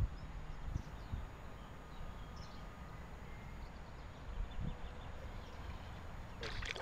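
Riverbank ambience: low wind rumble on the microphone, faint scattered bird chirps and a few soft handling bumps. Near the end a short burst of sharp clicking noise starts.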